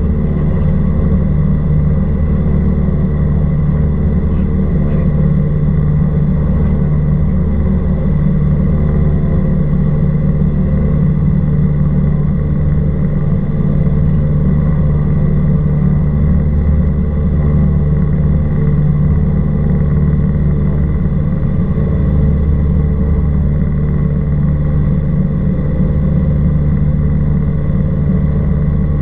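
Cessna 172R Skyhawk II in flight: its four-cylinder Lycoming IO-360 engine and propeller drone steadily at constant power, with no change in pitch.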